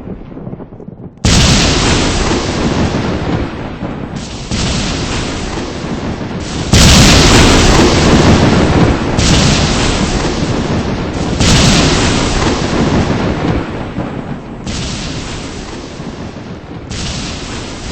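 A string of loud booms, about seven of them, each cutting in suddenly every two to three seconds and trailing off into a rumble.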